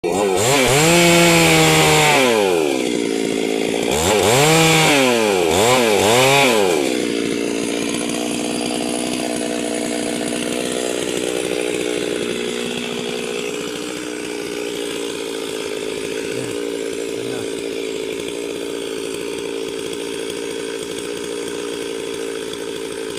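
Stihl two-stroke chainsaw revved up and back down three times, then running at a steady pitch.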